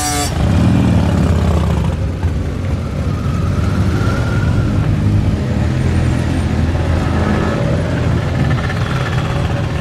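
A line of motorcycles, among them touring bikes and a scooter, rolling past at low speed with engines running steadily. One engine revs up and falls back in the first couple of seconds.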